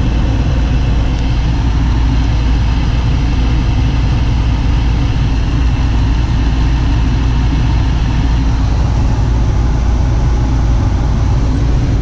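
Lennox G51MP gas furnace with its cabinet open, its blower and draft inducer motors running in a steady low hum and rush of air that does not change. The pressure switch has just opened, so the burners have dropped out while the fans keep running.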